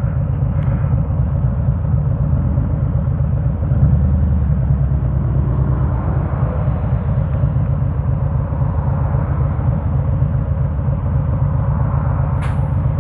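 Harley-Davidson Road King's V-twin engine running steadily while riding, mixed with road and wind noise, a little louder about four seconds in.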